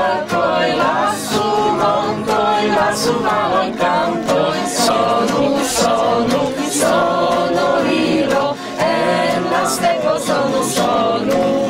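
A group of people singing a song together, many voices in chorus, in steady phrases.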